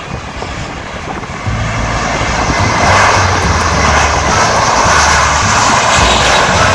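Jet engines of a twin-engine airliner on the runway, a loud steady rushing roar that grows louder about a second and a half in and then holds.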